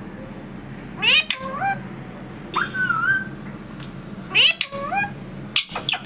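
Indian ringneck parrot giving three short, high-pitched calls about a second and a half apart, each gliding up in pitch, with a couple of sharp clicks near the end.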